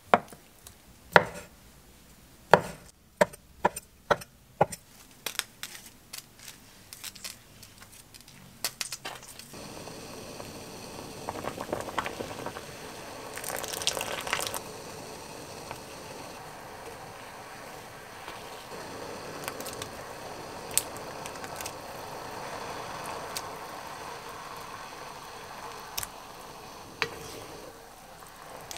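A kitchen knife chops tofu on a wooden cutting board, sharp knocks at irregular intervals for about nine seconds. Then water simmers in a pot with a steady hiss and bubbling, swelling briefly as more water is poured in, with a few light knocks of a wooden spoon.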